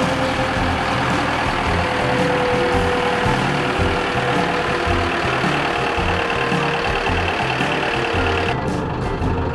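PistenBully snow groomer running as it drives by, a steady machine noise from its diesel engine and tracks with a held whine on top. Near the end the hiss in the sound cuts off suddenly.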